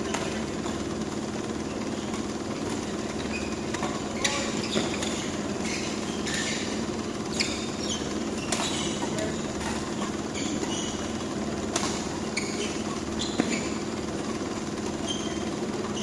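Badminton rally: a few sharp racket-on-shuttlecock hits and brief shoe squeaks on the court floor, over a steady hum from the hall's fans.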